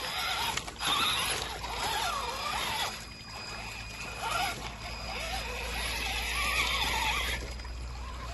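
Axial Wraith 2.2 RC crawler's electric motor and gearbox whining, the pitch rising and falling again and again with the throttle, over a steady hiss of noise.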